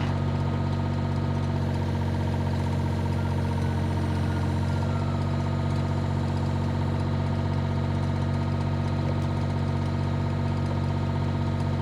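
Excavator's diesel engine idling steadily, an even low hum that holds at the same level throughout.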